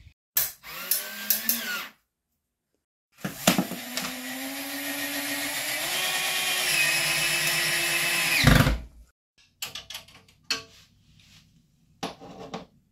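Cordless drill driving a screw through concrete board into the wall, a steady run of about five seconds whose pitch steps up, ending with a thump. A few short knocks follow near the end.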